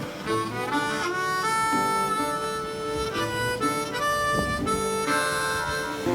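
Background music: a melody of held notes, changing about every half second, over accompaniment.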